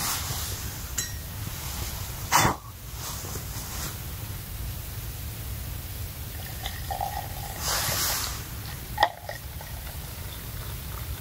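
Camp cookware being handled beside a gas camping stove, over a steady low rumble. A sharp, sudden noise comes about two seconds in and is the loudest sound. Later there is a short hiss and a metal click as a pot is poured into a mug.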